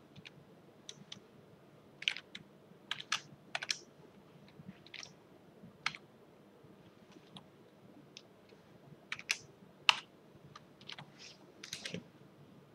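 Keystrokes on a computer keyboard, typed in short irregular runs with pauses between them.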